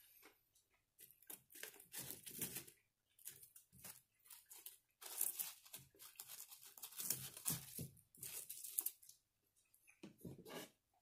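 Packaging being torn open and crinkled by hand: irregular bursts of rustling and tearing, with a short quiet spell after about nine seconds.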